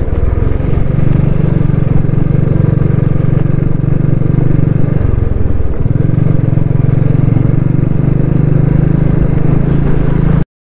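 Motorcycle engine running as the bike rides along, heard close from the bike itself. The engine note drops for about a second around five seconds in, then picks up again. The sound cuts off abruptly near the end.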